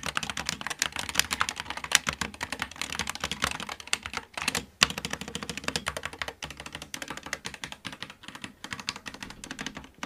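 Typing on a SteelSeries Apex Pro TKL keyboard: a fast, continuous patter of keystrokes, with a couple of brief breaks about four to five seconds in.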